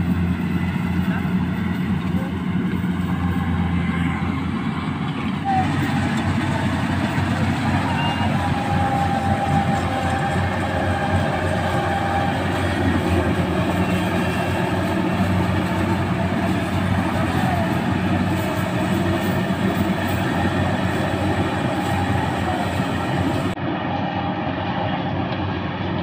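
Yanmar AW70V rice combine harvester's diesel engine running, a continuous low drone.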